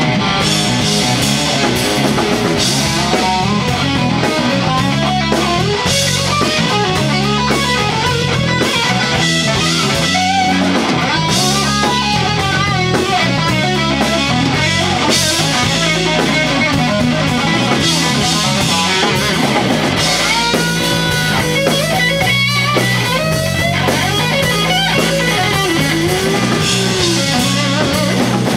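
Live rock band playing an instrumental passage: an electric Telecaster-style guitar plays lead lines with bending notes over drums.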